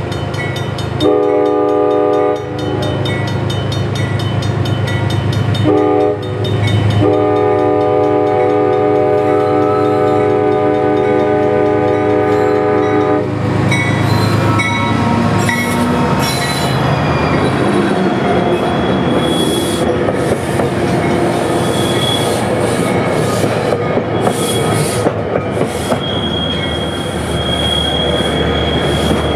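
A diesel passenger train's horn sounds for a grade crossing: two short blasts, then one held for about six seconds, while the crossing bell dings steadily underneath. From about halfway through, the locomotive and its coaches pass close by with engine noise, wheels clacking over rail joints and brief wheel squeals near the end.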